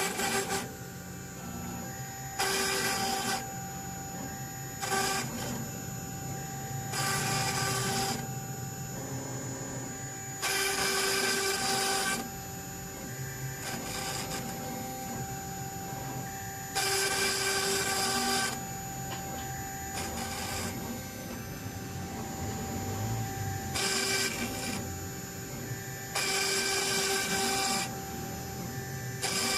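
CNC stone-engraving machine running: a steady spindle whine, with louder rasping bursts of one to two seconds every few seconds as the machine works.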